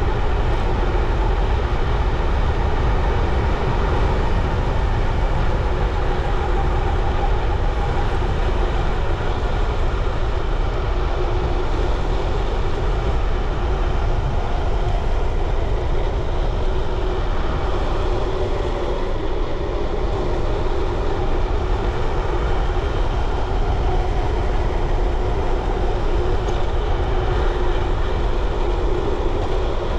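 Steady wind buffeting on the microphone over the rumble of bicycle tyres rolling along the road while riding.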